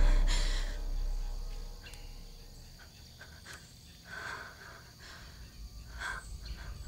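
A low, dark music swell fades out over the first two seconds. It leaves quiet lakeside ambience with steady insect chirring and a few faint ticks.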